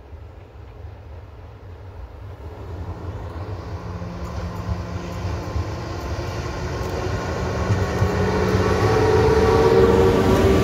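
An electric locomotive hauling a passenger train approaches and passes close by. Its rumble grows steadily louder, with a steady hum from the locomotive that strengthens as it nears, and the sound is loudest near the end as the locomotive goes by.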